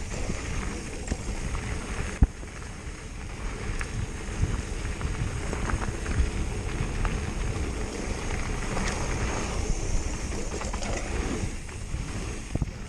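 Wind rushing over the microphone and wide 27.5-plus mountain-bike tires rumbling over a dirt trail on a fast descent, with scattered clicks and rattles from the bike and a sharp knock about two seconds in.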